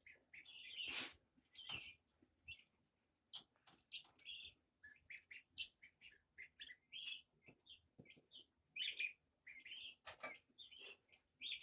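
Birds chirping: many short, high peeps scattered throughout, with a louder flurry about a second in and again near the end.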